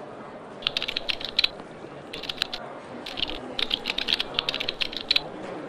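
Typing on a computer keyboard: quick runs of key clicks with short pauses between them, starting about a second in.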